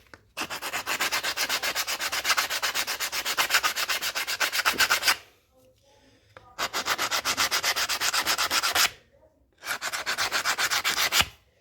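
A VW Beetle's brake shoe lining rubbed back and forth on sandpaper in rapid strokes, in three runs: the first about five seconds long, then two of about two seconds each after short pauses. The corners of the lining are being sanded round so the shoe won't catch in the brake drum.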